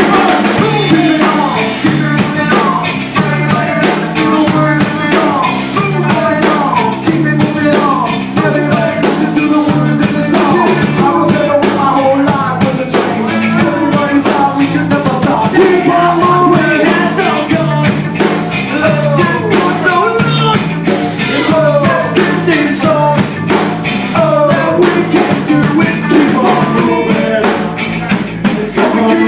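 A band playing an upbeat rock-style number, with a steady drum kit beat under singing or melody lines.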